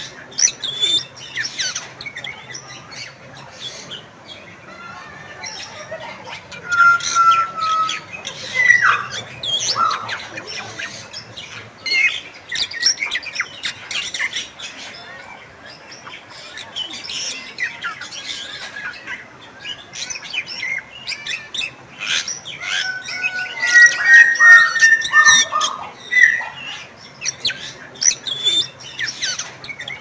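Bali myna calling: a run of harsh squawks and chattering notes mixed with short, clear level whistles, loudest in a burst of whistles and squawks about three quarters of the way through.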